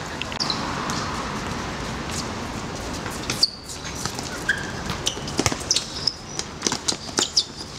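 Football played on a hard outdoor court: shoes squeaking and scuffing on the surface, with sharp knocks of ball kicks and footfalls. A steady hiss fills the first few seconds, and the squeaks and knocks come thick from about halfway on.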